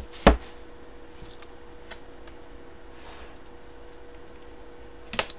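A cardboard box being handled and opened by hand: a loud knock just after the start, a few light ticks and a soft scrape, then two sharp clicks near the end, over a faint steady hum.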